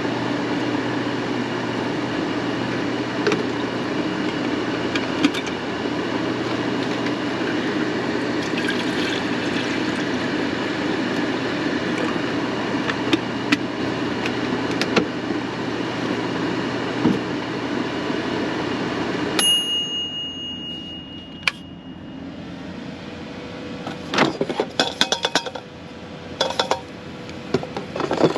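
Electric kettle heating water with a steady rushing hum, switching off suddenly about 19 seconds in with a brief high ring. After it, a few scattered clinks of metal and glass.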